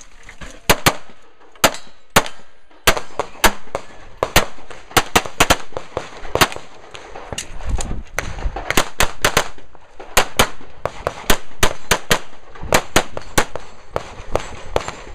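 Pistol fired in quick strings through a timed practical-shooting stage: dozens of sharp shots, many in close pairs, with short pauses between groups.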